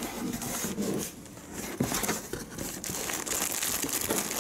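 Plastic wrapping crinkling and rustling as a cardboard box of plastic-wrapped towels is opened and handled, with a short lull about a second in.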